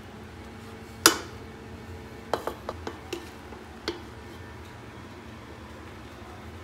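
A plastic serving spoon knocks and clinks against a metal pot while scooping cooked rice: one sharp knock about a second in, then several lighter clicks.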